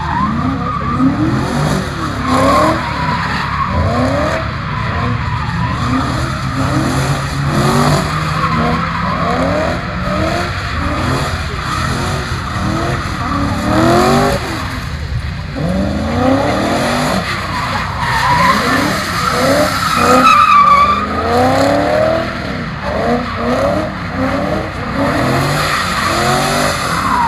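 Ford BA Falcon XR8's 5.4-litre V8, breathing through 4-into-1 extractors and a twin exhaust, revving up and down over and over as the manual car drifts in first gear. Its rear tyres squeal and skid on the pad, loudest about twenty seconds in.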